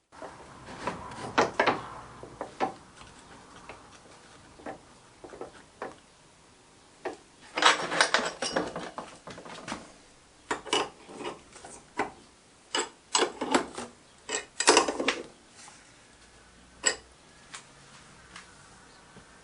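Irregular metallic clicks, knocks and short rattles of tools and metal parts being handled and set down, with two longer clattering scrapes about eight and fifteen seconds in.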